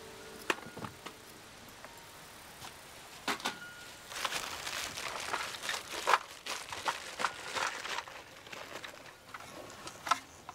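Quiet rustling and scattered soft clicks from movement, thickest from about four to eight seconds in.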